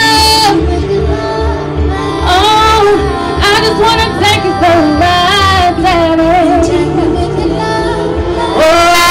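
A woman singing long, wavering held notes into a handheld microphone over live band music with a steady pulsing bass line.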